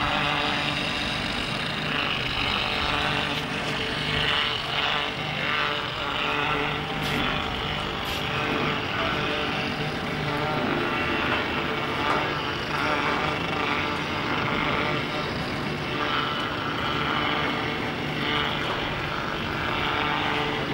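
Crane engine running steadily under load while it holds and lowers a suspended sculpture, an even engine sound with no change in pitch.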